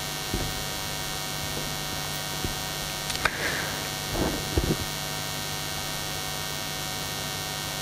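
Steady electrical mains hum from the sound system, with a few soft knocks about three to five seconds in.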